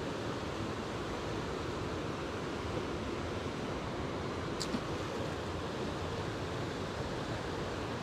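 Stream water rushing steadily, an even noise of fast-flowing, foaming water.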